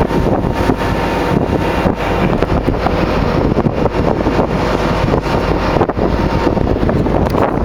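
Wind buffeting the microphone aboard a moving boat, a loud, steady rushing rumble.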